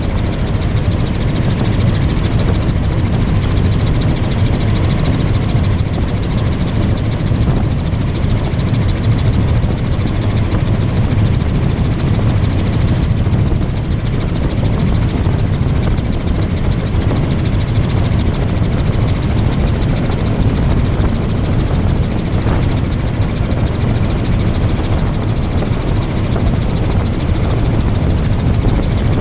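Tour helicopter in flight: a steady, loud rotor and engine drone with a fast, even blade beat, unchanging throughout.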